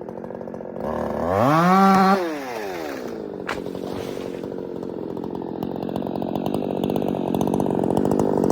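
Two-stroke chainsaw revved up briefly about a second in, then dropping back to a steady lower running note that slowly grows louder toward the end. A single sharp click comes about halfway through.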